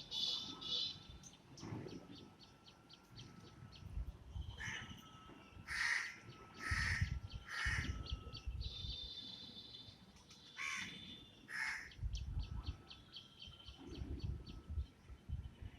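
Kingfisher calling: rapid runs of short, high chattering notes and a high trill, broken by several loud, harsh, raspy calls about six to twelve seconds in.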